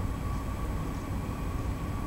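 Steady low rumble of outdoor background noise, with a faint steady whine above it.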